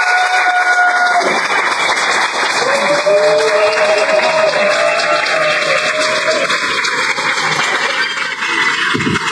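Audience applauding in a small club, with a few voices calling out over the clapping.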